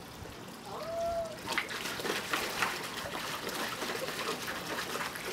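Husky puppy pawing and digging at the water in a shallow plastic kiddie pool, making quick irregular splashes that start about a second and a half in. A brief tonal call comes just before.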